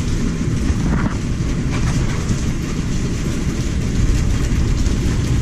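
Strong storm wind buffeting the camera's microphone in a loud, steady rumble, with a hiss of heavy rain over it.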